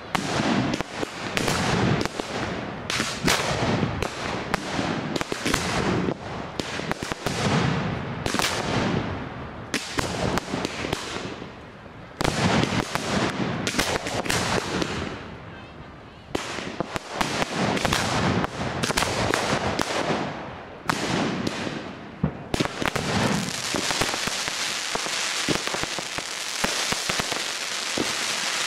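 Fireworks display: a rapid, near-continuous barrage of shell bursts and bangs with a couple of brief lulls, turning at about 22 seconds in into a dense, unbroken crackle.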